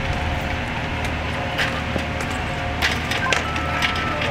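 Fire trucks' engines running, a steady low hum with a faint steady whine, under scattered sharp knocks and clatter of equipment being handled from about a second and a half in.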